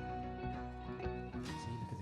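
Background music with plucked-string notes and a steady beat.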